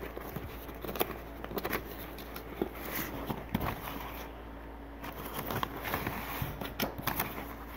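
Sheets of drawing paper rustling and sliding as a hand leafs through a stack, with scattered light crackles and clicks throughout.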